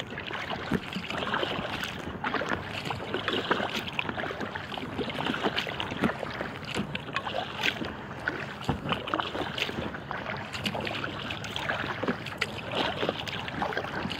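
Water lapping and splashing against the hull of an inflatable kayak as it is paddled over small waves: a steady run of small, irregular splashes and drips.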